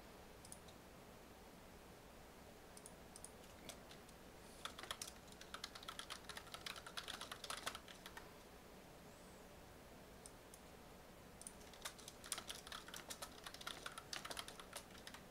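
Typing on a computer keyboard: two bursts of rapid key clicks, the first starting about a third of the way in and the second near the end, with a quiet stretch between.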